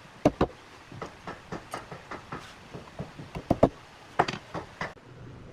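Wooden mallet tapping thin wooden dowel pins down into wooden boards: a run of sharp knocks, three or four a second, the hardest blows near the start and toward the end.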